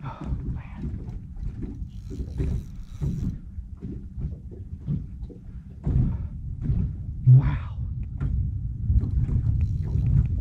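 Uneven low rumbling noise with scattered knocks and thumps aboard a small aluminium jon boat while a large fish is fought on rod and reel; no single sound stands out.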